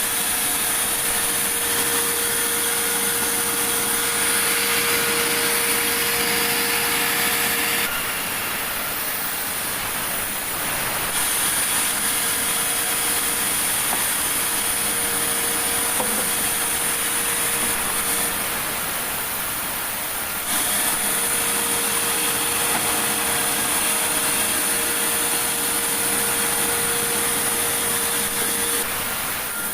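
Sawmill saw running steadily as it cuts a large meranti log, a constant machine noise with a steady whine over it. The sound changes abruptly several times.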